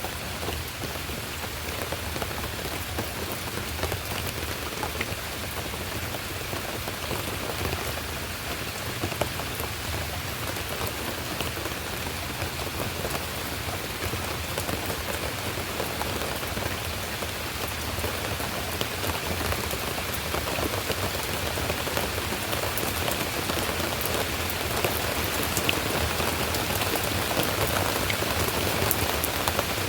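Steady rain falling: a dense patter of drops that grows slightly louder over the last third.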